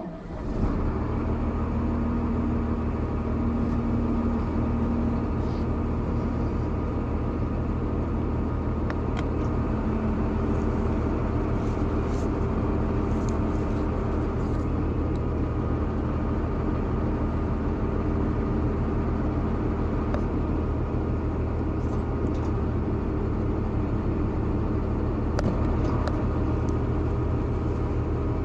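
An engine running steadily, a constant low drone that cuts in abruptly at the very start, with a few faint light clinks in the middle.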